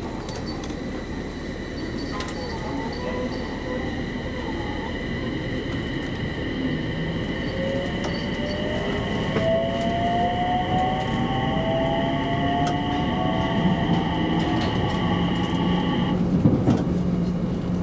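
Electric commuter train pulling away from a standstill: the traction motors' whine glides upward as it picks up speed, over a growing rumble of wheels on track. Steady high-pitched tones from the drive cut off about 16 s in, when the power is shut off.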